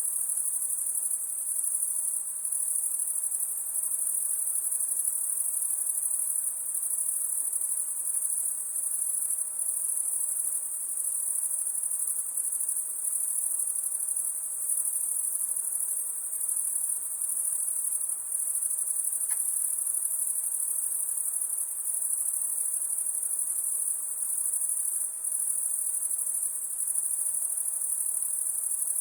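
Insects trilling at night: a steady, unbroken high-pitched buzz.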